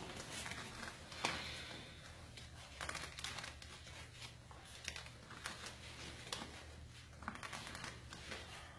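Small scissors cutting through white wrapping, with crinkling and rustling and scattered short clicks.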